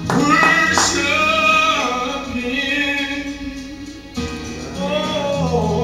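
Slow gospel worship song: a singer holding long, drawn-out notes over instrumental accompaniment.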